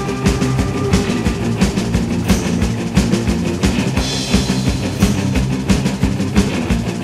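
Fast punk rock recording with the drum kit to the fore: steady kick and snare hits driving under sustained guitar chords.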